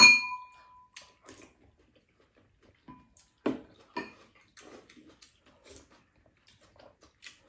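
A spoon strikes a ceramic bowl right at the start with a sharp, briefly ringing clink. After it come scattered quiet eating sounds: small taps of spoons and chopsticks on the bowls, smacks and slurps of soup taken from spoons.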